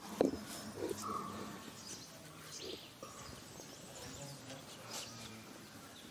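Faint outdoor ambience: scattered soft bird chirps over a low background hush, with a few small clicks.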